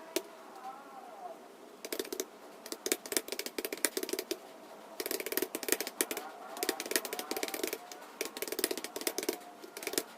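Typing on a computer keyboard: fast runs of key clicks in bursts, with short pauses between them.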